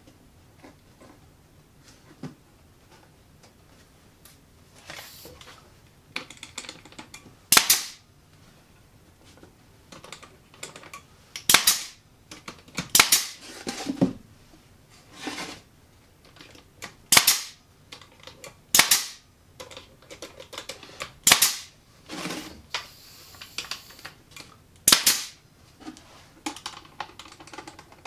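Pneumatic brad nailer firing brads into cedar boards. There are about seven sharp shots a few seconds apart, with quieter knocks and handling noises between them.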